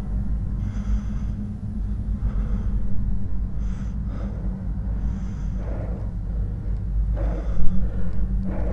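A deep, steady rumbling drone, with a man breathing heavily in short, uneven gasps over it; one gasp near the end is louder.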